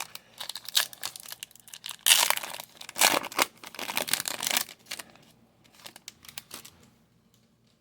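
Trading card pack wrapper being torn open and crinkled by hand, an irregular crackling rustle that is loudest in the middle and dies away after about five seconds.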